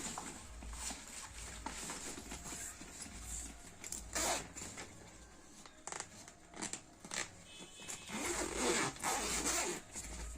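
Zipper on a fabric travel duffel bag being pulled in short runs, with a longer pull of about two seconds near the end and light handling clicks in between.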